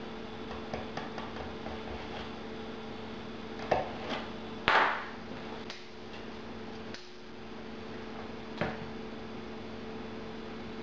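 Hand tools knocking and clicking on a workbench during leatherwork: a few light clicks, then a handful of sharp knocks, the loudest about halfway through, over a steady electrical hum.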